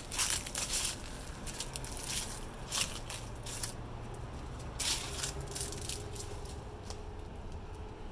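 Footsteps crunching over dry fallen leaves and debris in irregular bursts, loudest in the first second and again about five seconds in, over a steady low drone.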